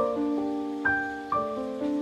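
Background piano music: a gentle melody of single notes, each struck and left to fade, about two a second.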